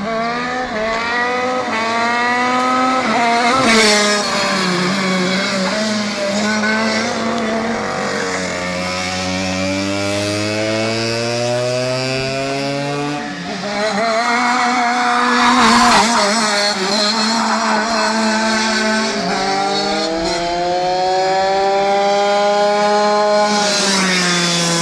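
Go-kart engines revving up and down as the karts lap the circuit, the pitch repeatedly rising and falling. Louder passes come about four seconds in and again around sixteen seconds.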